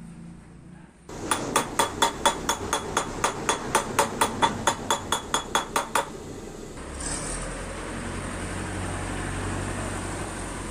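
Rapid hammer blows on a steel drift rod set in the bore of a part clamped in a bench vise, driving a bushing: about twenty ringing metal-on-metal strikes at roughly four a second, stopping about six seconds in.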